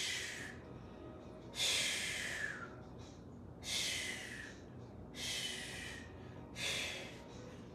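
A woman breathing hard through her mouth, winded from high-intensity cardio exercise. There are five loud, hissing breaths, about one every second and a half.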